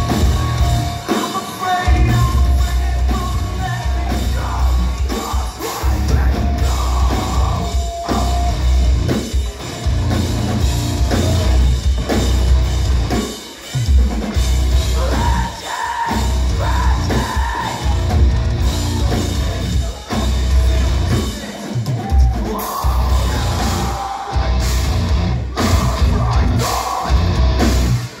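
Metalcore band playing live through a club PA, heard from among the crowd: heavy distorted guitars and bass, pounding drums and vocals, with the low end stopping short several times.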